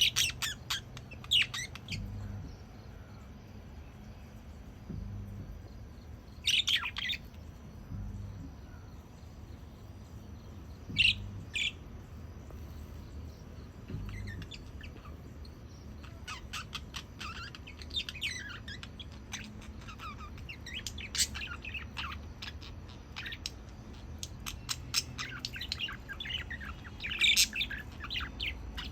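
Pet budgerigars chirping: short high chirps every few seconds, turning into busier, continuous chattering and warbling from about halfway through.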